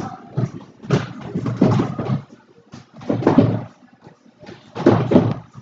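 Indistinct voices of other people in the gym, coming in short bursts of a second or less with quieter gaps between.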